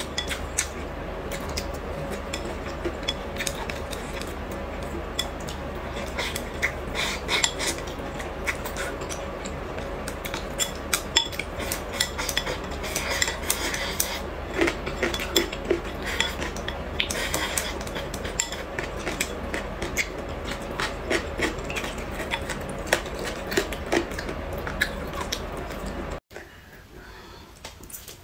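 Wooden chopsticks clicking and scraping against a porcelain rice bowl as rice is shoveled from the bowl's rim into the mouth: a rapid, irregular run of small taps. It cuts off abruptly near the end.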